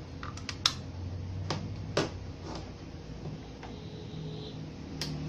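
Sharp plastic clicks and knocks: a mains plug pushed into a power strip, with several clicks close together in the first second, then a click about five seconds in as the XENON PRO-XA 1240F amplifier's power switch is pressed.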